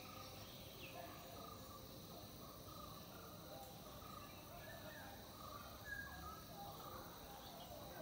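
Faint birds calling in the background: many short chirps scattered throughout, over a low steady hiss.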